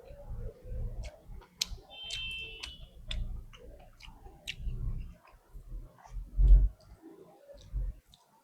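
Close-up eating sounds: chewing and mouth smacks with many short clicks and soft low thumps. A brief high steady tone sounds about two seconds in, and a louder low thump comes a little after six seconds.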